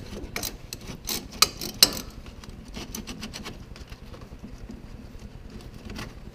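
Hand ratchet with socket and extension working the 10 mm exhaust-manifold-to-head bolts: a few sharp metallic clicks and clinks in the first two seconds, then softer ticking, with one more click near the end.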